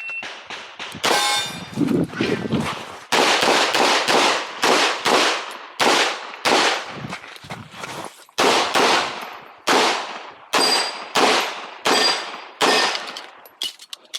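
KMR Spectra 9mm pistol firing a fast string of shots during an IPSC stage, many in quick pairs, with short breaks between strings. A thin metallic ring follows some of the shots.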